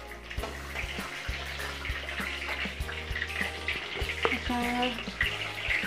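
Cumin seeds sizzling in hot cooking oil in an aluminium kadhai, crackling lightly as a metal slotted spatula stirs them.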